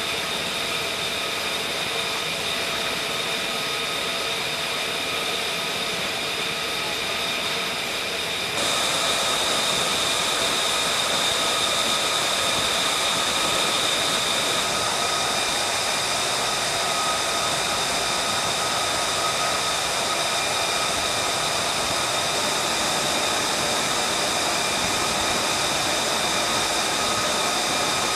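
F-35C Lightning II's single F135 turbofan jet engine running steadily: a dense rushing noise carrying several high, steady whining tones. The sound steps up a little louder about nine seconds in.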